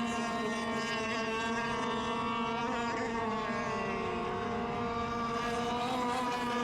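Radio-controlled model racing boats running laps together: the steady high whine of their motors, several pitches overlapping and drifting slightly up and down.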